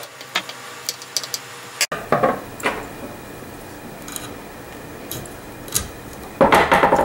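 Small metal parts of a Westernfield .22 bolt-action rifle's trigger mechanism clicking and tapping as they are fitted back together with a screwdriver. Near the end there is a louder cluster of metallic clicking and rattling.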